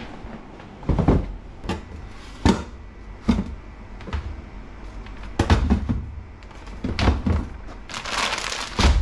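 Scattered knocks and thuds of things being handled and set down, then a stretch of rustling, crinkling noise near the end.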